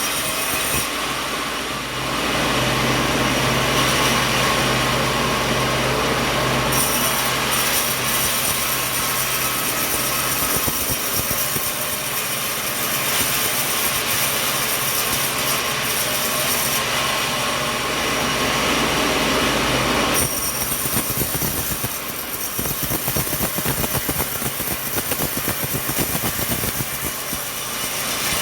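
Sawmill machinery running continuously, a steady motor hum under a dense, harsh mechanical noise. The hum changes about two seconds in and again around twenty seconds in.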